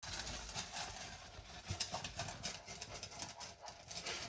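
Golden retriever eating from a bowl: a dense run of quick, irregular crunching and clicking sounds as he chews and his food shifts against the bowl.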